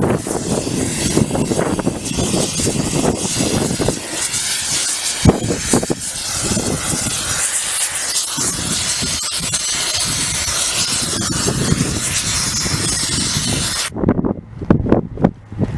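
Compressed air hissing steadily from a long blow-gun wand pushed into a fitting on a steam locomotive's rusted cylinder head, with one sharp knock about five seconds in. Near the end the hiss stops and a few separate knocks follow.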